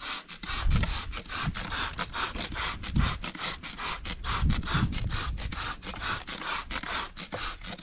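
Trigger spray bottle pumped rapidly, about four or five short hissing squirts a second, misting water onto a car's wheel and brake drum. A few low bumps come through underneath.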